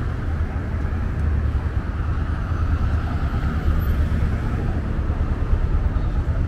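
Steady city street traffic: vehicles passing with a continuous low rumble.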